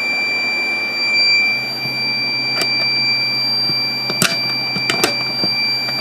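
Electronic alarm buzzer sounding a steady, unbroken high-pitched tone as the fire alarm test setup is re-alarmed, over a low hum, with a few sharp clicks.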